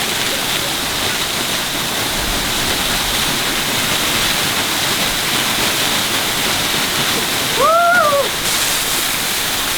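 Waterfall pouring down in a steady, heavy rush of falling water. About eight seconds in, a person gives a short rising-and-falling whoop over it.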